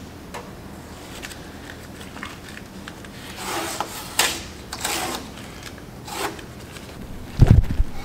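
Hands rubbing and handling tape at a plastic grille: soft rubbing with a few short swishes in the middle. Near the end comes a heavy low thump as the camera is handled.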